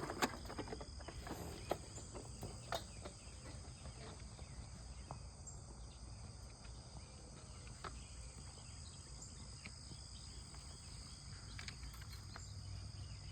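Steady, high-pitched chorus of insects such as crickets, with a few faint clicks and taps scattered through it.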